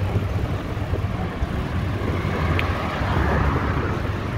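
Steady low rumble and hiss of road traffic mixed with wind on the microphone of a moving bicycle.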